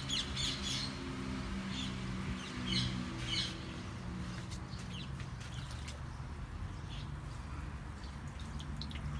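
Birds chirping in short repeated calls during the first few seconds, over a steady low hum.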